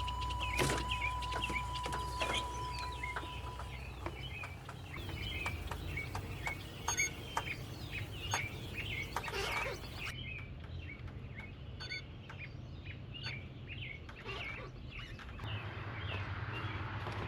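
Birds calling in short, repeated clucks and chirps, over a steady low hum that fades out about four seconds in and comes back near the end.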